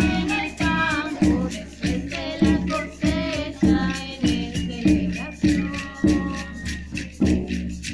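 Women singing a melody together over a steady beat, a little under two beats a second, with a frame drum among the instruments.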